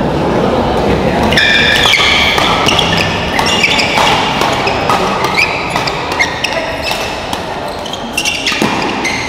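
Badminton rally in a sports hall: players' shoes squeak on the court floor again and again, with sharp cracks of rackets hitting the shuttlecock, over a steady background of crowd noise.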